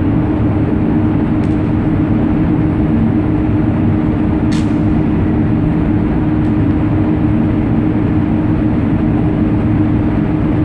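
Steady low rumble with a constant droning hum on the deck of a docked cruise ship, with one brief faint high click about four and a half seconds in.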